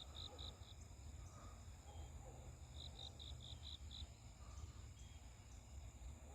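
Faint outdoor ambience: an insect chirps in two short runs of rapid pulses, at the start and again about three seconds in, over a steady high-pitched whine and a low rumble.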